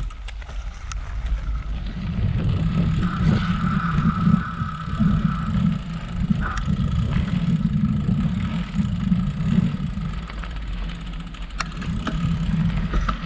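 Mountain bike ride heard through a handlebar-mounted GoPro: wind buffeting the microphone and tyres rumbling over a packed-dirt trail, with occasional clicks and rattles from the bike.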